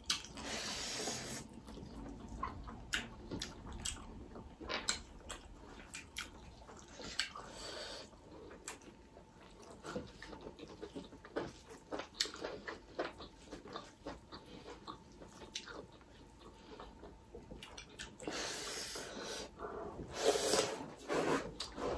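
Close-up eating sounds: two people chewing and smacking on rice and mutton eaten by hand, with many scattered sharp mouth clicks and a few short breathy bursts, the latter near the start and again near the end.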